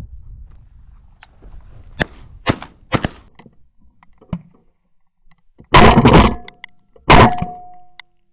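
Shotgun shots at a flushed quail: two loud blasts about a second and a half apart, preceded by a few light snaps.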